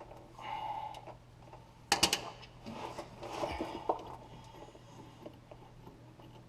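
Clinks and scraping of a wrench and metal hydraulic fittings being worked by hand, with a sharp double clink about two seconds in.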